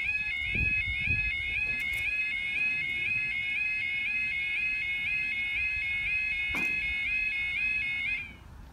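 UK level crossing yodel alarm: a rapidly repeating two-tone warble sounding steadily while the barriers come down. It cuts off with a short falling tone about eight seconds in, as the barriers reach the lowered position.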